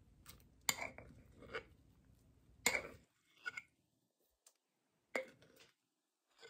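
Metal spoon clinking and scraping against a glass jar while thick sourdough starter is spooned out into a bowl: a handful of light, sharp clinks about a second apart.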